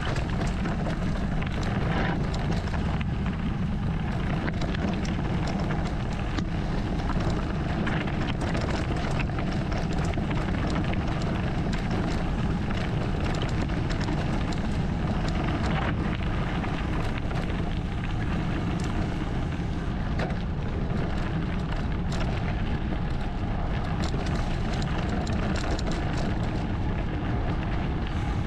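Mountain bike rolling down a dirt and stony singletrack: tyres crunching over earth and stones with frequent small clicks and rattles from the bike, under a steady low rumble of wind on the microphone.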